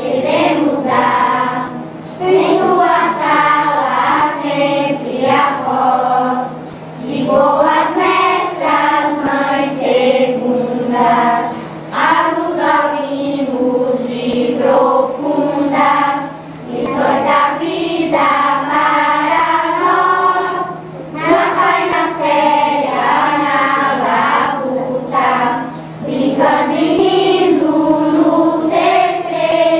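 A choir singing a song in phrases, with short breaks between them, over a steady low hum.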